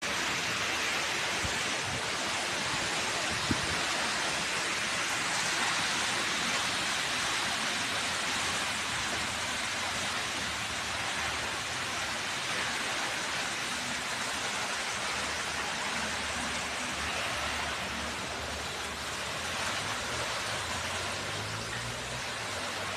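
Heavy rain pouring steadily, driven by strong wind, with one sharp tap about three and a half seconds in.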